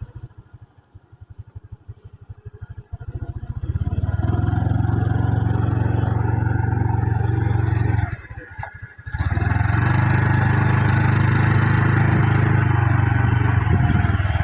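Motorcycle engine ticking over in slow, even pulses, then running on the move with a heavy low rumble of wind on the microphone; the sound drops away briefly about eight seconds in before the riding rumble returns.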